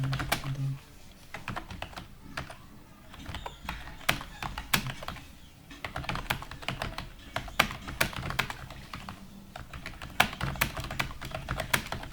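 Computer keyboard being typed on at speed: quick, irregular clicking of keys in runs, with short pauses between runs.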